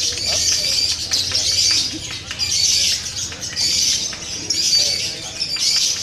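Lovebird chattering: rapid, high-pitched clicking trills in bursts about a second apart.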